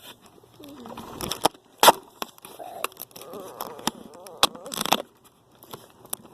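Duct tape ripping off the roll in several short screeching pulls while a device is taped in place, with sharp handling clicks between pulls.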